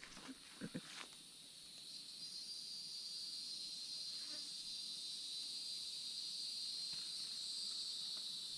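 Insects calling in a steady high-pitched chorus that swells about two seconds in and holds, with a few brief rustles in the brush in the first second.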